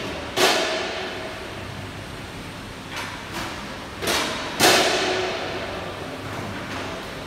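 Metal clanks as a car's wheels roll onto the steel ramps and deck plates of a Celette Rhone XL frame-straightening bench: two heavy clanks that ring on, about four seconds apart, with a few lighter knocks between them.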